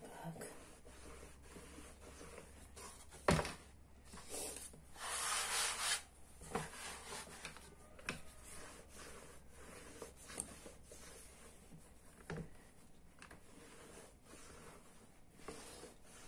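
Rolling pin working a sheet of puff pastry on a floured wooden board: soft rubbing strokes, with a sharp knock about three seconds in, the loudest sound, and a rustle lasting about a second a little later. A few softer knocks come later on.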